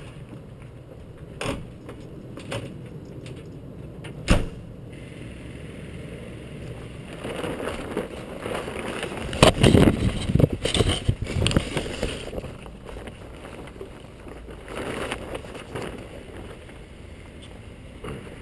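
Plastic tarp rustling as it is pulled back off a bicycle, loudest in the middle, with a few short sharp knocks in the first few seconds.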